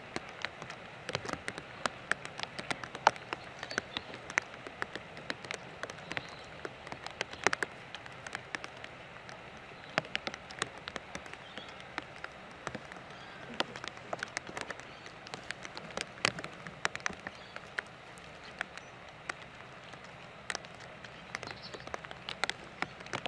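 Rain falling: a steady light hiss with many sharp, irregular taps of drops landing close by.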